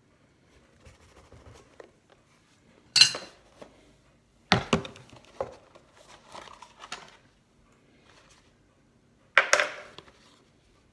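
A watch box and its contents being handled and unpacked: three sharp clatters about 3, 4.5 and 9.5 seconds in, with softer rustling of packaging and small knocks between them.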